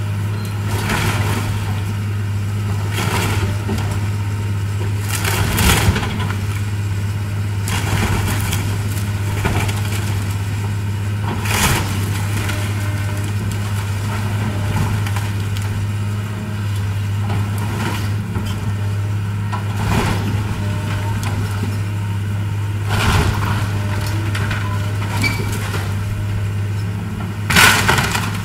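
CAT excavator's diesel engine running steadily while it tears into the wreckage of a wooden barn, with sudden crashes of breaking and falling debris every few seconds, the loudest near the end.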